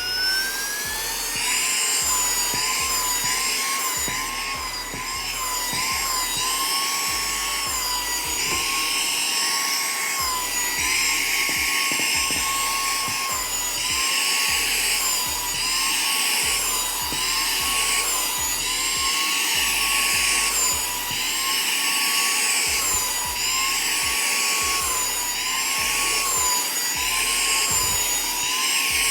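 Saker 3-in-1 cordless mini handheld vacuum vacuuming a sofa. Its motor whines up to speed at the start, then runs with a high-pitched whine that dips in pitch and recovers every couple of seconds.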